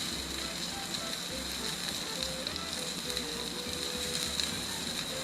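Wagyu New York strip steak sizzling in garlic butter on a smoking-hot Blackstone flat-top griddle: a steady hiss with small crackles and spatters.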